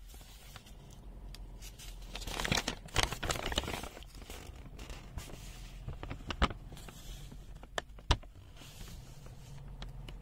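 Paper rustling as the pages of a printed user manual are handled and turned, loudest between about two and four seconds in. A few sharp taps follow, the loudest about eight seconds in.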